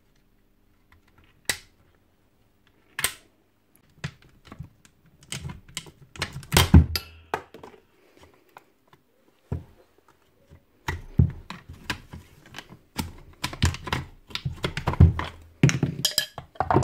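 Two screwdrivers prying the cooling fan off the motor armature of a Hilti TE905 demolition hammer: two single sharp clicks in the first few seconds, then runs of clicking, scraping and clattering as the blades lever against the fan and housing.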